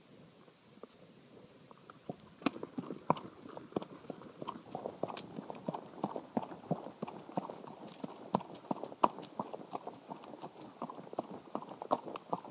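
Horse hooves striking a dirt trail strewn with dry leaves: rapid, uneven hoofbeats that start about two seconds in and grow louder as the pace picks up.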